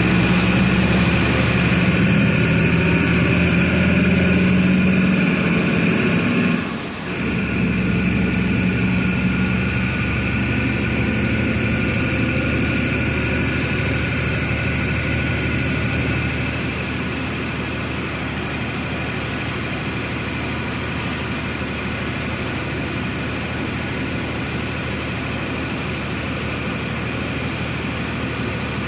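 Diesel engine of a Volksbus 17-230 EOD city bus running under load, with steady engine tones. It drops away briefly about seven seconds in, then runs on more quietly and settles to a steady lower level from about sixteen seconds.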